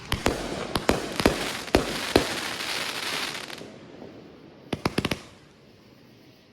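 Fireworks going off: a string of sharp bangs over the first two seconds, then a crackling hiss that fades, and a quick cluster of four or five pops about five seconds in.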